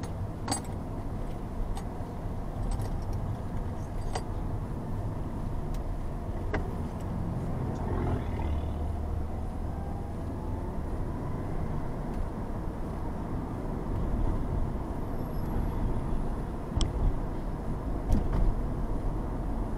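Car driving in city traffic, heard from inside the cabin: a steady low rumble of engine and tyre noise, with a few sharp clicks and some louder bumps near the end.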